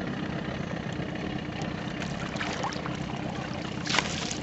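Motorboat engine idling steadily, with a brief rush of noise near the end.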